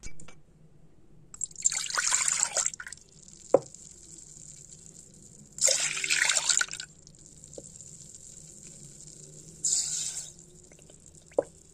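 Milk being poured into a speckled enamel pot in three separate pours, each a second or so long. There is a sharp knock between the first two pours and another near the end.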